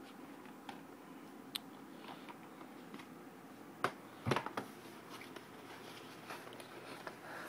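Plastic DVD case being handled: a few scattered clicks and taps, the sharpest two close together a little past halfway, over a faint steady low hum.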